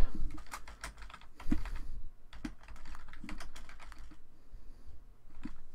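Typing on a computer keyboard: an irregular run of quick keystrokes as a line of text is entered.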